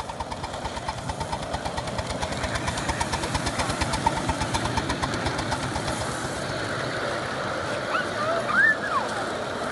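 Ride-on scale steam-outline Pacific locomotive and its riding cars rolling past on the track with a rapid, even beat, growing louder as it comes by and then easing. A few short high gliding sounds near the end.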